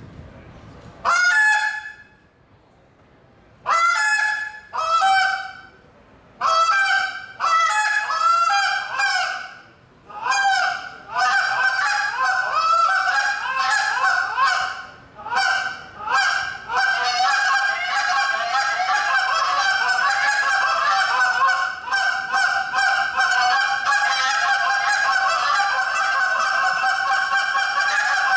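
Goose call blown by a contest caller: a single honk about a second in, then a run of separate honks that quickens from about ten seconds into a fast, unbroken string of short honking notes.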